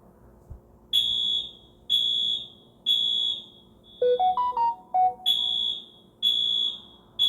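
Samsung JetBot robot vacuum's speaker sounding the SmartThings 'fire alarm' notification as an intrusion alarm: loud, high-pitched beeps about once a second, each about half a second long, starting about a second in. About four seconds in, a short run of lower rising notes breaks in before the beeps resume.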